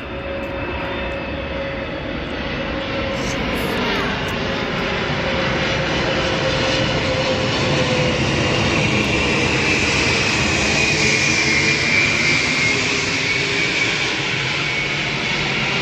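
Antonov An-124-100 Ruslan's four Progress D-18T turbofan engines as the aircraft comes in to land. The jet noise grows louder to a peak about twelve seconds in, with a high fan whine that drops in pitch as it passes.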